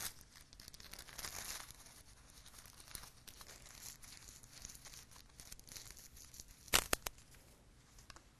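Lens cleaning tissue crinkling and rustling as it is rubbed over a binocular lens, louder about a second in. There is one short, sharp click near the end.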